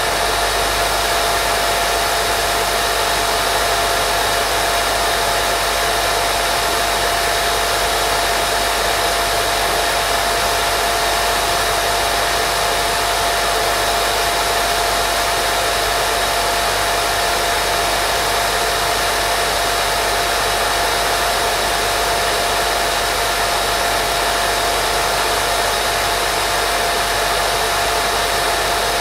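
Steady, unchanging white noise made for baby sleep, hissing evenly with a faint constant tone running through it.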